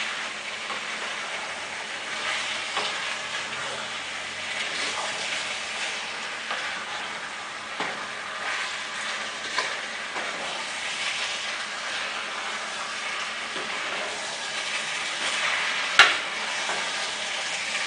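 A wooden spoon stirring chili with beans in a saucepan: soft scraping over a steady sizzle, with one sharp knock near the end.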